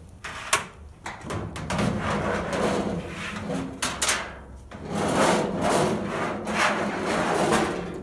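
Sheet-steel drum of a Kenmore 90 Series dryer being dragged out through the front of the cabinet: scraping and rubbing with a few sharp knocks, in two long stretches.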